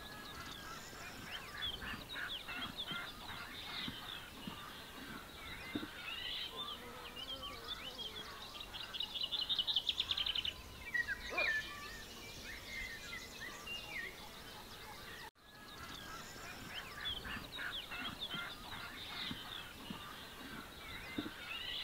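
Many songbirds singing at once, a dense mix of short chirps, whistles and trills, with one louder rapid trill about halfway through. The sound cuts out abruptly for a moment about two-thirds of the way in, then the birdsong resumes.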